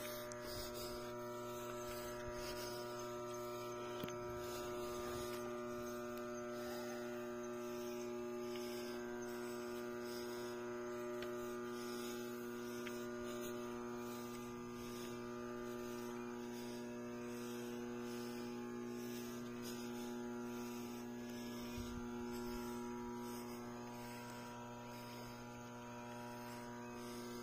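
A steady electrical hum with a stack of evenly spaced overtones, unchanging in pitch and level, with a faint knock or two.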